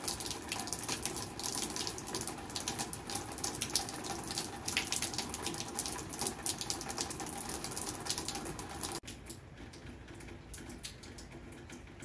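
Steady rain falling, with many close, sharp drop ticks; about nine seconds in the sound drops to softer, more distant rain.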